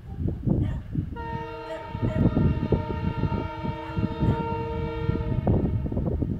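Horn of an approaching class 661 diesel freight locomotive sounding one long multi-tone chord. The blast starts about a second in and holds steady for about four seconds before cutting off. Gusting wind buffets the microphone throughout.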